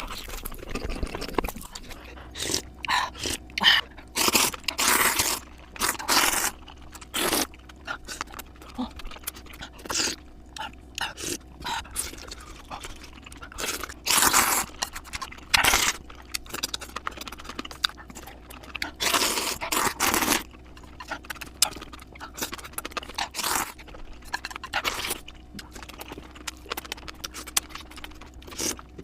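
Close-miked eating sounds at fast playback: crisp bites crunching and crackling, mixed with chewing, in quick irregular bursts.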